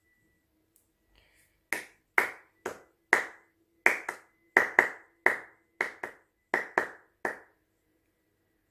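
A series of about a dozen sharp snaps or clicks in an uneven rhythm, each ringing briefly. They start a little under two seconds in and stop about a second and a half before the end.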